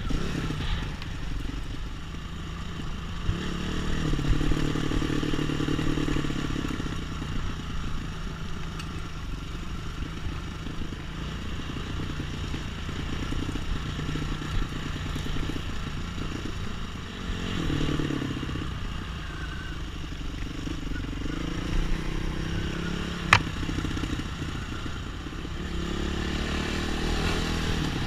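Off-road trail motorcycle engine running under changing throttle, its pitch rising and falling as it rides, with clattering from the bike over rough ground. One sharp knock comes near the end.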